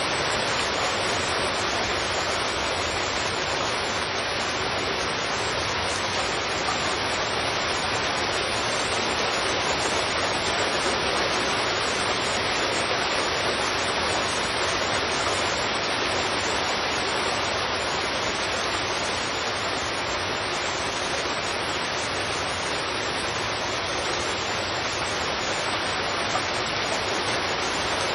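Heavy rain falling on a street, a steady, even hiss with no change or break.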